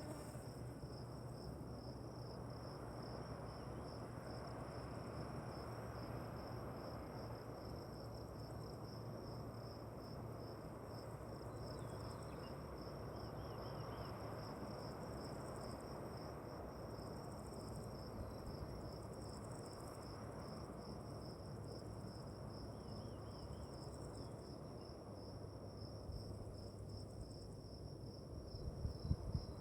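Crickets chirping in a steady, fast-pulsing trill over a low, even rush of outdoor background noise. A few soft knocks come near the end.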